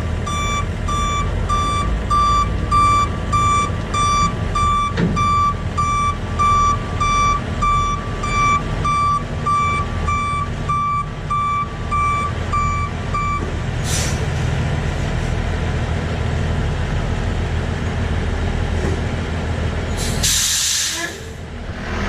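A truck reversing with its backup alarm beeping steadily, about one and a half beeps a second, over its diesel engine running. The beeping stops partway through. A short sharp hiss of air from the truck's air brakes follows, and a longer, louder hiss comes near the end.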